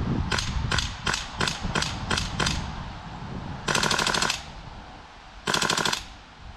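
Gas-blowback airsoft rifle with an Alyan kit firing, heard from about ten metres: seven single shots at about three a second, then two short rapid bursts.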